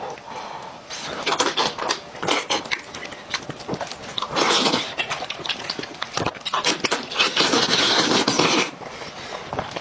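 Close-miked eating of a cooked goat's head: meat pulled apart by hand and wet, smacking chewing and sucking, full of sharp wet clicks with breathy stretches in between.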